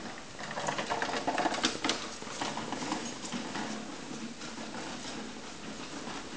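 Small wheeled trolley rattling over a hard platform floor, with the pusher's footsteps. Loudest as it passes close, then fading as it moves away.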